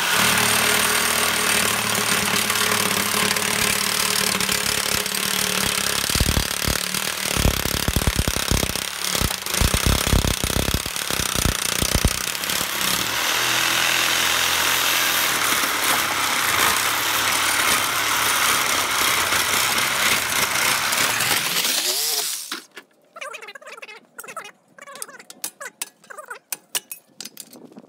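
Corded reciprocating saw cutting through the copper return bends along the tube sheet of a scrap air-conditioning coil, running loud and steady with a stretch of heavy chattering in the middle. About three-quarters of the way through the motor winds down and stops, and a few scattered light clicks and clatter follow.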